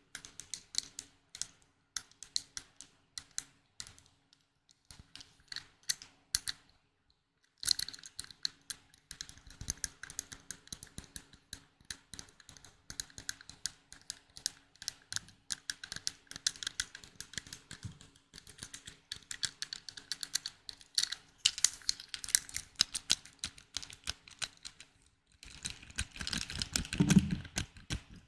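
ASMR trigger sounds of quick, irregular tapping and clicking on small objects, like fast typing. The taps are sparse with short pauses at first, come thick and continuous from about eight seconds in, and near the end give way to a fuller rubbing, rustling sound.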